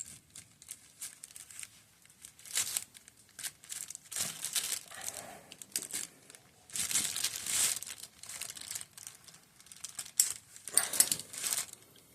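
Circlip pliers and small shifter parts being handled while a circlip is fitted onto a motorcycle gear shift lever: irregular scraping and clicking in short bursts, the loudest near the middle and near the end.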